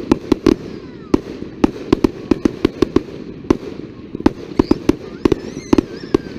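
Fireworks display going off in a rapid, irregular string of bangs and cracks, several a second.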